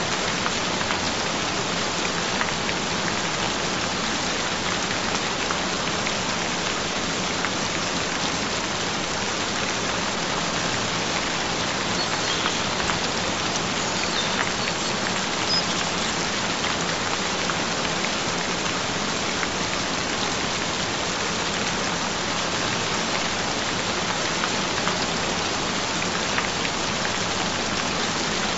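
Steady rain on a hard surface, an even hiss of drops throughout, with a low steady tone beneath it from a binaural-beat and isochronic-tone track.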